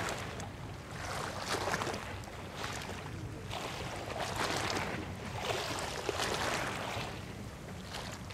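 Water lapping, swelling and easing every second or so over a low steady rumble.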